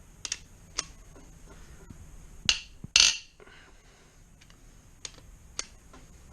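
Metal hand tools clicking and clanking on the Rover V8's cylinder head bolts as they are loosened: a few sharp single clicks, two louder, longer metallic clanks about two and a half and three seconds in, then two more clicks near the end.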